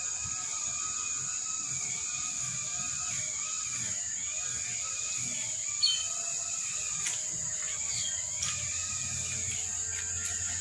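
Soft background music with a wavering melody over a steady high-pitched hiss, with one sharp click about six seconds in.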